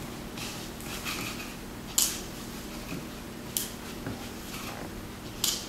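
Hands kneading soft, oiled naan dough in a bowl: quiet squishing and rustling, with four sharper squishes spaced a little under two seconds apart.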